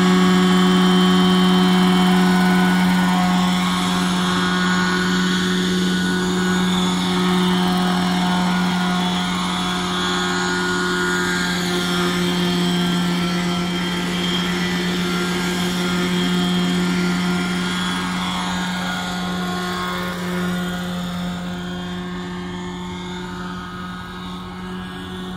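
Radio-controlled scale Bell 212 (Huey) helicopter model running, its engine and rotor giving a steady drone with a higher whine above it. It grows fainter as it flies away, with the pitch sliding slightly near the end.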